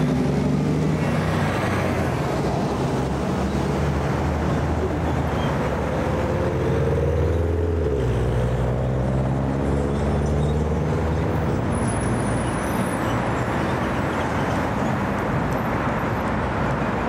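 Airbus A330-300 airliner on final approach, its twin turbofan engines giving a steady jet drone with a low hum that swells and wavers as the jet comes in low overhead.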